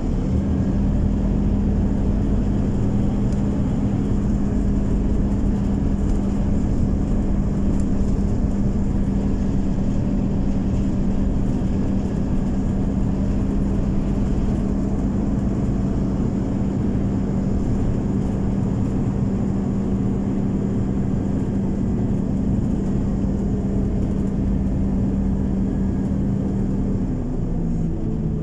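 Scania OmniCity city bus heard from inside the cabin while driving, its engine and drivetrain holding a steady hum over a low rumble. The pitch steps up at the start as the bus gets going and falls away near the end as it slows.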